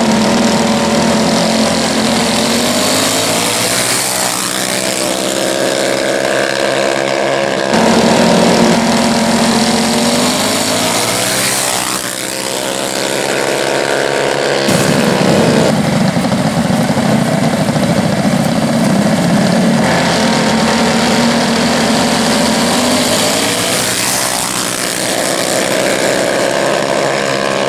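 Small-engine minibikes racing, their engines revving up and falling back in pitch again and again. The sound breaks off abruptly and picks up again twice.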